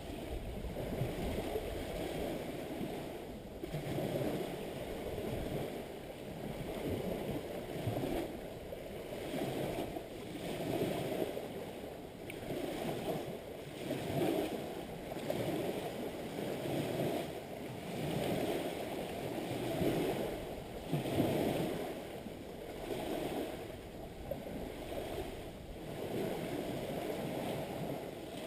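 Small lake waves washing in against the shore one after another, the sound swelling and falling about every second and a half.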